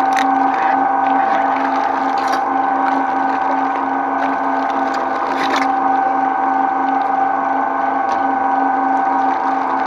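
Twin-shaft shredder running with a steady motor and gear hum, its cutter discs chewing through plastic packets, with a few short crackles as the packaging tears.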